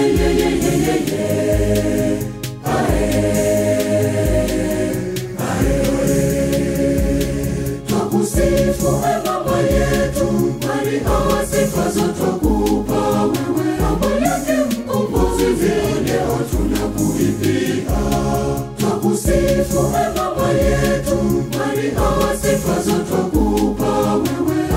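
Church choir singing a Swahili hymn in praise of Mary, many voices together over backing music with a steady bass beat about once a second.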